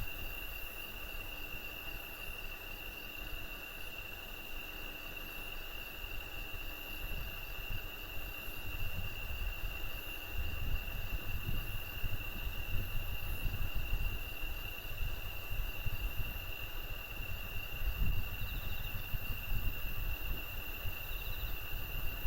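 Insects, crickets or similar, trilling in one steady, unbroken high-pitched chorus. An irregular low rumble joins from about halfway through.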